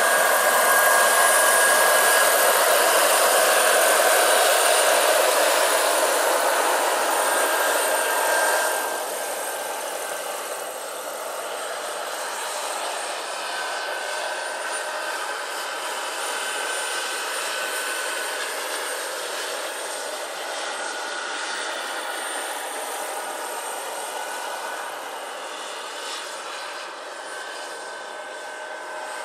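Turbine engines and rotors of two 1/5-scale Kamov Ka-32 model helicopters: a steady high turbine whine over a rushing hiss. The sound drops abruptly about nine seconds in, with the helicopters farther off.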